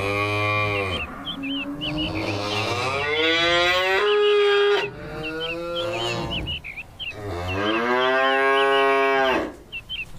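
Cow mooing: several long, drawn-out moos, one after another, with small birds chirping in the background.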